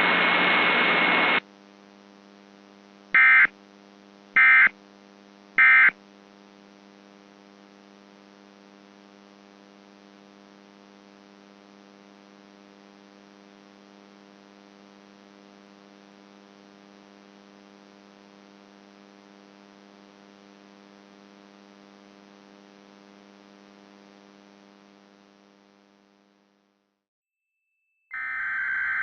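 Three short Emergency Alert System end-of-message data bursts, about a second apart, closing the alert. A loud hiss cuts off just before them, and a steady low buzz follows that fades out after about twenty seconds. Loud alert tones start up again near the end.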